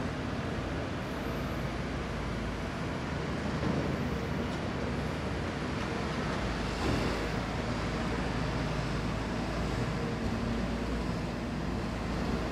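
Caterpillar 340F long-reach excavator's diesel engine and hydraulics running under work: a steady drone with a faint steady whine, and a short louder knock about seven seconds in.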